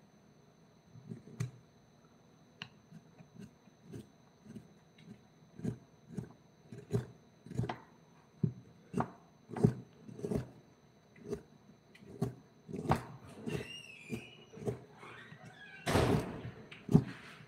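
An irregular series of dull knocks, about one or two a second, with a louder, noisier knock about 16 seconds in.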